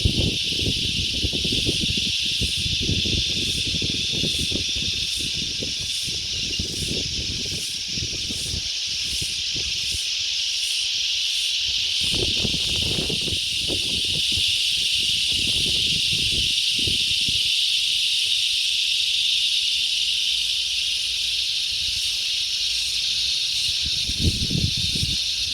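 Wind gusting and buffeting the microphone in low rumbles over a steady high outdoor hiss, with a regular series of faint high ticks, a little over one a second, through the first half.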